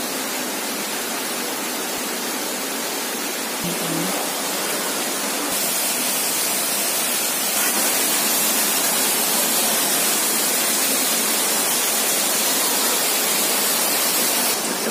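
Steady rushing hiss of water falling from a rock cliff and splashing below. It gets louder and brighter about five seconds in.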